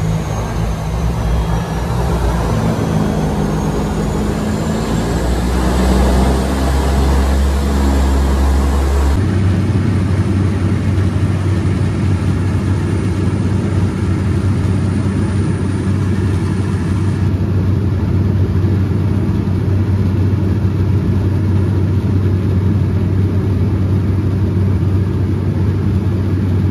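Floatplane engine and propeller heard from inside the cabin, rising in pitch at full power during the takeoff run on the water. About nine seconds in the sound changes abruptly to a steady drone in level flight.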